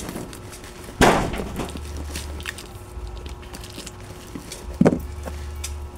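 A cardboard box being opened and handled on a counter: a sharp crack or knock about a second in and another near the end, with small rustles and ticks of cardboard between them, over a steady low hum.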